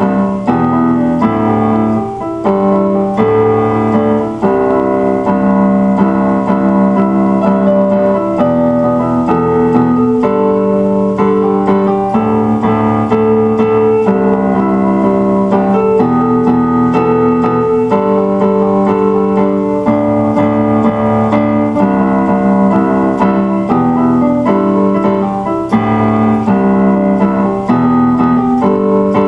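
Background music: a piano or electric-piano piece with held chords that change every second or two.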